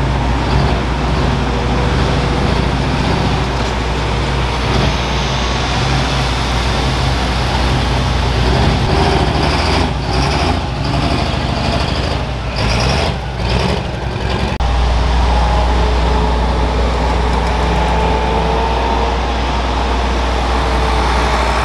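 A John Deere 4450 super stock pulling tractor's turbocharged engine running flat out as it drags the weight sled, wavering and dropping off near the end of the run. About fourteen seconds in it gives way abruptly to another super stock tractor's engine running steadily at the sled hitch.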